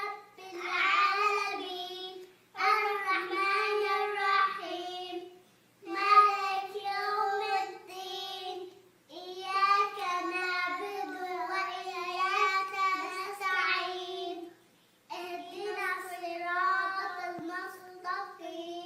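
A child's voice chanting Quran recitation in long melodic phrases, with short breaks between them.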